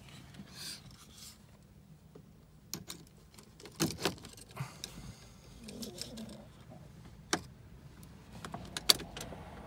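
A flip key clicking and rattling against a 2002 Porsche Boxster's ignition lock as it is inserted and turned: a scatter of separate light clicks, the sharpest near the end.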